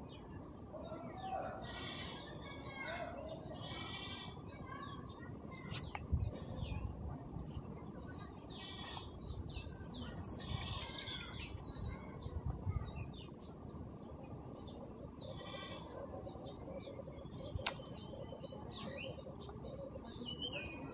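Small birds chirping and twittering in repeated short runs over a low outdoor background, with a few low thumps about six and twelve seconds in.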